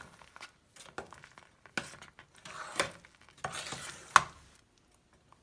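A spoon stirring thick cooking semolina in a pan, with a series of separate scrapes and taps against the pan; the sharpest tap comes a little after four seconds in.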